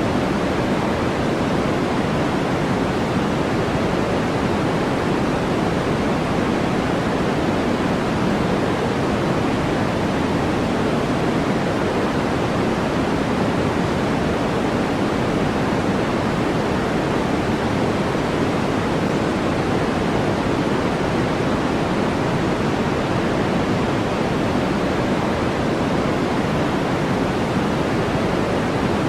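Steady, unchanging white-noise sleep track: an even hiss with no change or break, weighted toward the lower middle and softer in the treble, so it sounds deeper than pure white noise.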